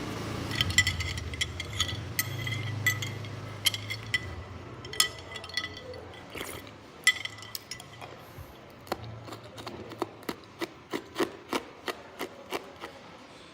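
Hard ice being bitten and crunched, a long series of sharp cracks. In the first half there are ringing clinks and a low hum, and near the end the cracks come about once or twice a second.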